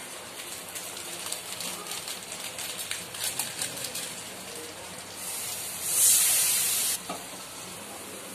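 Masala frying in hot oil in a kadai, crackling lightly, then a louder sizzling hiss for about two seconds that cuts off suddenly.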